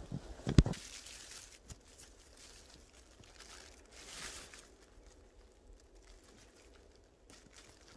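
Quiet rustling and crinkling of a clear plastic sheet and clothing as hands clip the sheet to the edge of a poncho, with a dull thump about half a second in.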